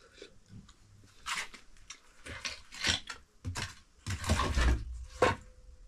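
An animal eating cooked pumpkin: irregular bursts of chewing and biting noise, the longest about four to five seconds in.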